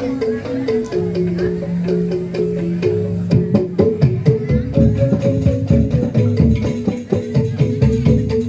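Instrumental music: a melody of short stepped notes over a low bass line, with percussion that becomes dense and busy about three seconds in.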